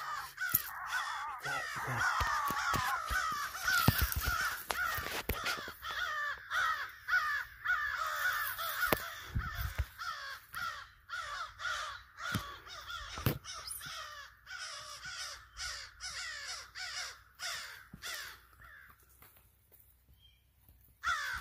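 Crow caws, many in quick, overlapping succession at a steady pace, thinning out and stopping shortly before the end. A few knocks and bumps from handling are mixed in.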